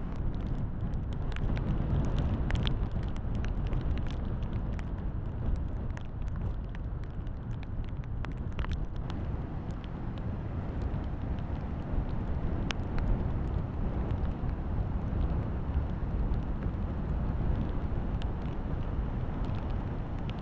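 Heavy storm surf from a hurricane breaking around wooden pier pilings: a steady rushing noise with a strong deep rumble, with a few faint sharp clicks here and there.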